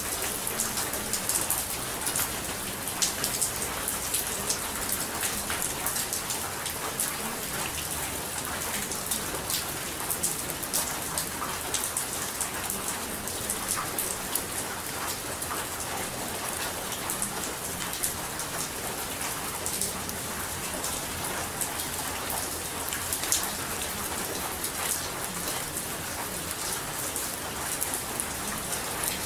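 Steady rain: a constant hiss dotted with the sharp ticks of many individual drops hitting a surface, holding an even level throughout.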